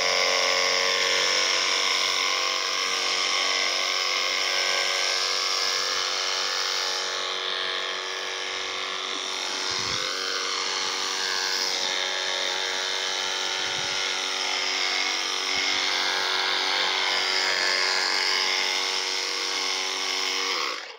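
Handheld mini pressure washer running steadily, its electric pump whining and the nozzle hissing as it sprays liquid up into the trees; it cuts off near the end.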